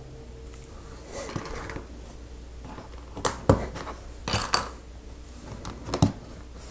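Plastic LEGO bricks clicking and clattering as hands pick them from a pile and press them onto a baseplate: a handful of sharp clicks spread out, loudest about three and a half seconds in.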